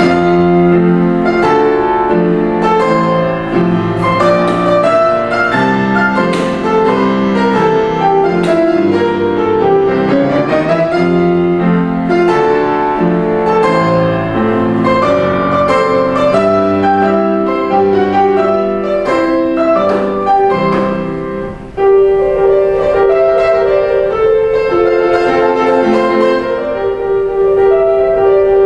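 Grand piano playing solo, a flowing passage of chords and melody. About three-quarters of the way through it breaks off briefly, then comes back in strongly with held notes.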